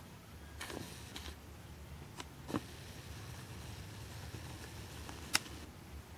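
Faint, steady low room hum with a few soft clicks and taps from handling the camera, the sharpest about five seconds in.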